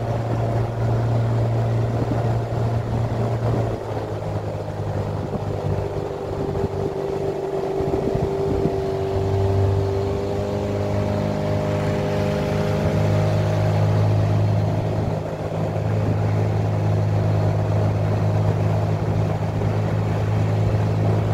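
Motor of a small aluminium boat running steadily under way, its engine note shifting slightly in pitch a couple of times.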